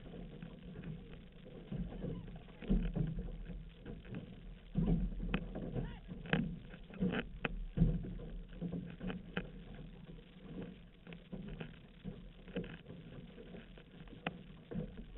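Paddles dipping and pulling through the water beside an outrigger canoe, with water rushing and splashing along the hull. Irregular sharp knocks and splashes stand out over the steady wash.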